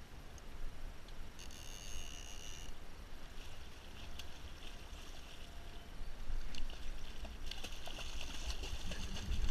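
A hooked spring salmon thrashing and splashing at the water's surface, louder and rougher in the last couple of seconds, over wind rumble on the microphone. A short high buzz about a second and a half in.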